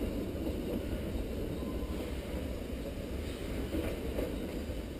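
Narrow-gauge 2-6-2T steam locomotive working its train some way off, a steady low rumble.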